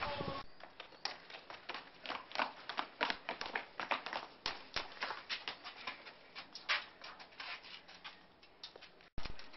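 Footsteps of several children walking quickly on a paved path: a stream of irregular sharp taps. The sound drops out briefly near the end.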